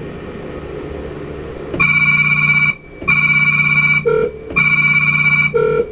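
Electronic tones sounding three times, each held steady for about a second, with a short blip after the second and third; a low hum comes before them.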